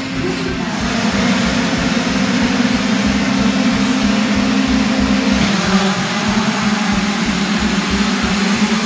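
A full field of two-stroke 65cc motocross bikes held at high revs on the start gate, their engines blending into one steady drone. About five seconds in the pitch shifts as the gate drops and the bikes launch away together.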